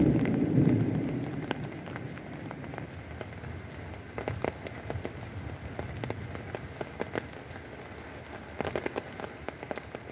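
Light rain falling steadily, with scattered sharp ticks of drops that bunch up around four and nine seconds in. A louder low rush fills the first second, then fades.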